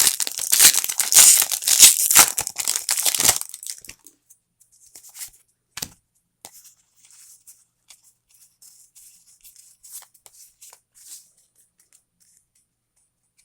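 Foil booster pack wrapper being torn open, with loud crinkling for about the first three and a half seconds, then faint rustles and small clicks as the cards are handled.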